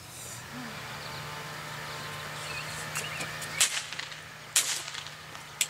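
Outdoor ambience with a steady low hum and a few brief chirps. In the second half come three sharp clicks about a second apart.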